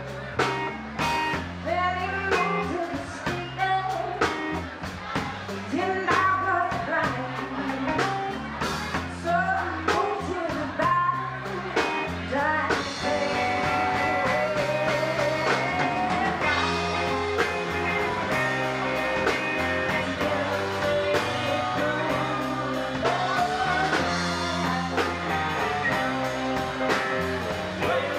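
Live rock band playing: a female lead voice singing over electric guitar, keyboards, bass and drum kit. About twelve seconds in the band turns fuller and steadier, with a wash of cymbals.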